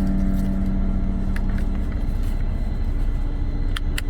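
Steady low rumble of an idling truck engine heard inside the cab. A held low tone fades out about two seconds in, and there are a few light clicks near the end.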